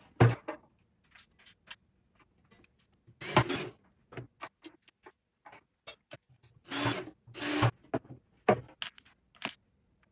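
Cordless drill driving small screws into a polystyrene nuc box lid in several short bursts, with small clicks and rubbing from handling the latch pieces and foam.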